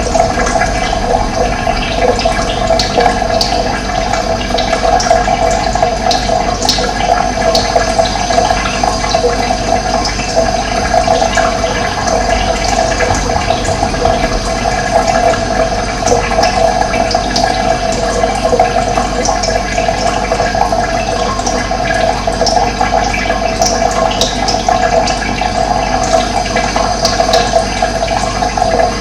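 Running water: a steady, even rush with a strong midrange band, with short high-pitched notes scattered through it.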